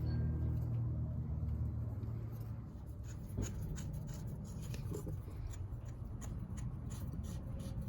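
Small clicks, taps and scrapes of hand tools and metal parts being handled while the carburetor is taken off a Yamaha Blaster ATV. A low hum is heard through the first couple of seconds.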